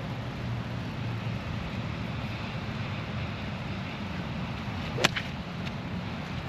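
A golf club striking a ball: a single sharp crack about five seconds in, over a steady low rumble of wind and rain noise on the microphone.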